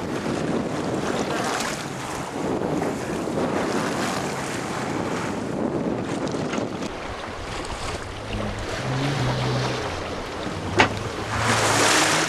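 Wind buffeting the microphone and water rushing along the hull of a Chrysler 22 sailboat heeled over in strong wind. A single sharp knock comes about eleven seconds in, and the rush swells louder near the end.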